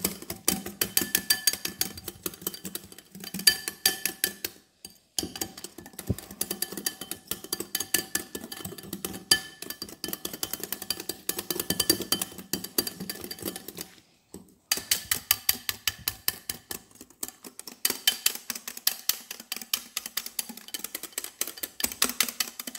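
Wire whisk beating a thick whipped dalgona coffee mixture of instant coffee, sugar and hot water by hand in a glass bowl: fast, rhythmic clicking of the wires against the glass. It stops briefly twice, about five and fourteen seconds in.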